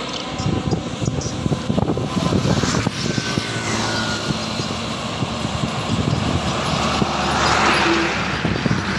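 Trucks passing close on a road: engine rumble and tyre noise, swelling as one goes by about seven to eight seconds in.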